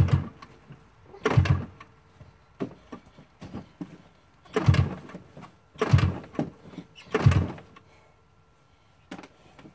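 Two-stroke engine of a modified Polaris 700 snowmobile being pull-started cold with a broken primer: five hard rope pulls, each turning the engine over briefly without it catching, and a weaker sixth pull near the end.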